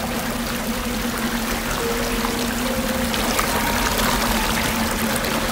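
Stream water rushing over a small cascade in a stone-edged channel, a steady splashing rush. Soft background music notes run faintly underneath.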